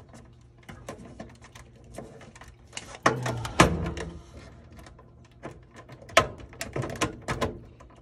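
Hand screwdriver driving a self-tapping screw into a washing machine's plastic control-board housing: scattered clicks, scrapes and small knocks of the tool and parts being handled, loudest about three seconds in.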